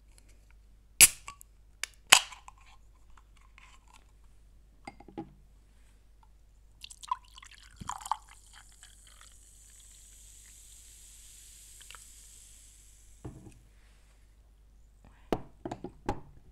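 A mojito drink being poured into a glass: a couple of sharp clinks, then a steady hiss of pouring liquid for about four seconds, with more knocks of the glass and tableware near the end.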